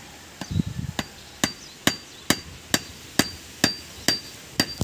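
Claw hammer striking a screwdriver held as a punch against a car drive shaft at its CV joint. About ten evenly spaced blows land a little over two a second, starting about half a second in, each with a short metallic ring. This is the CV joint being knocked apart so its worn bearings can be replaced.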